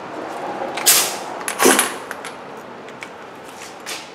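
Handling noise as a pneumatic impact wrench is picked up and readied: a short hissy burst about a second in and a clunk just under two seconds in, then faint clicks. The wrench is not run.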